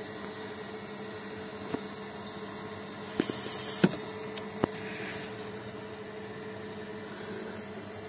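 A/C vacuum pump running with a steady hum, drawing a vacuum on the car's air-conditioning system. Over it come a few sharp clicks from the service-port coupler being handled, about four in all. A short hiss about three seconds in ends in the loudest click.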